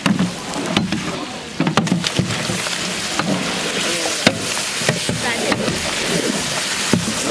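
Long metal spatulas stirring and scraping through a big steel tray of frying spices and mashed burnt eggplant, with occasional sharp knocks against the pan over a steady hiss of frying.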